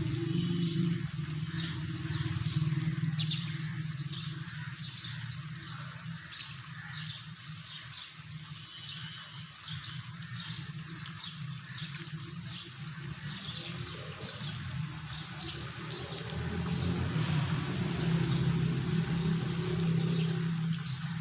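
Steady rain hiss with small birds chirping over and over, above a low steady hum that swells near the start and again in the last few seconds.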